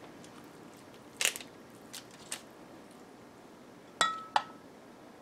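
Metal basting brush clinking twice against the rim of a glass measuring cup of melted butter and herbs near the end, the first strike ringing briefly. Earlier, a short rustle and a couple of faint ones as the brush works over the chicken.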